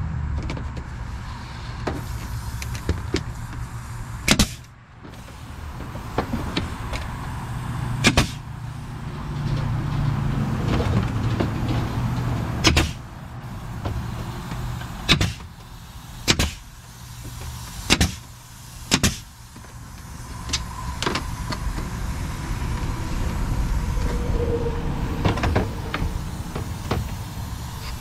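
A pneumatic narrow-crown stapler fires about seven sharp shots at irregular intervals as trim is fastened, over a steady low hum and handling noise.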